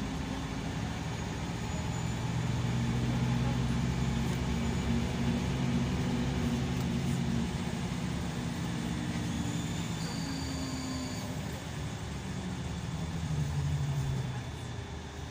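Scania K340EB coach's diesel engine and road noise heard from inside the cabin while under way. The engine note swells about two seconds in, holds, then rises again near the end before easing off.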